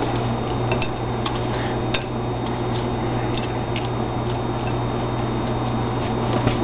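Light scattered clicks and taps of hot deep-fried shrimp and dishes being handled while plating, over a steady low hum.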